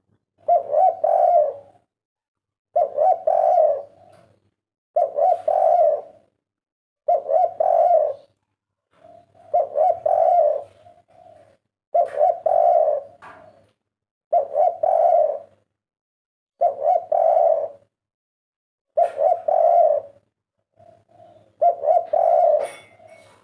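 Spotted dove cooing its three-note 'kuk 3' song, the phrase repeated about every two seconds, around ten times over.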